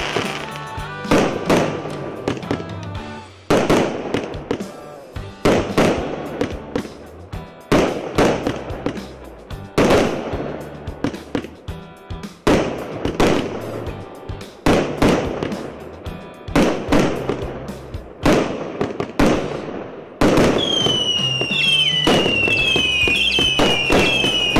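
A 99-shot fireworks cake firing shot after shot, about one every second or two, each a sharp report with a decaying burst and crackle, over background music. Near the end the shots come faster, with a run of short falling whistles.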